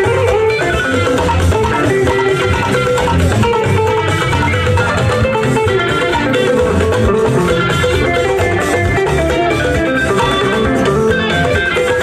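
Live praise-band music led by a plucked electric guitar over a bass guitar, playing continuously.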